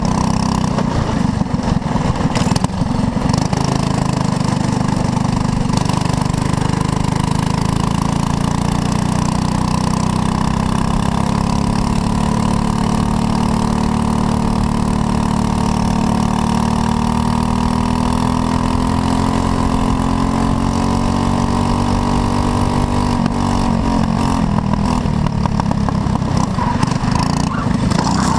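Racing kart engine under hard acceleration, recorded on board. Its pitch climbs gradually for about fifteen seconds, then falls away a few seconds before the end as the kart slows for a corner.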